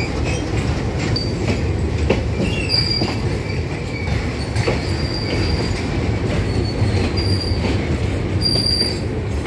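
Freight train wagons rolling past at close range: a steady rumble of steel wheels on rail with occasional knocks. Short high-pitched wheel squeals come and go several times.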